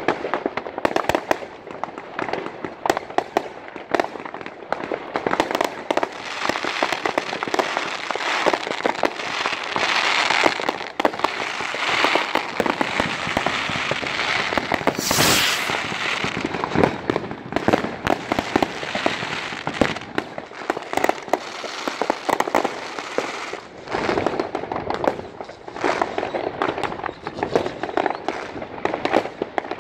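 Fireworks and firecrackers going off on all sides: a dense, unbroken stream of bangs, pops and crackles, with a brief loud hiss about halfway through.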